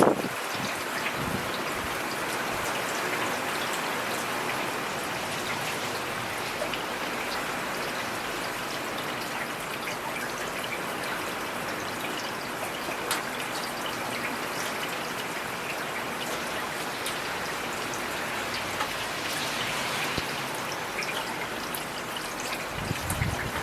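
Heavy rain falling steadily: a dense, even hiss of rainfall with many small drop ticks scattered through it.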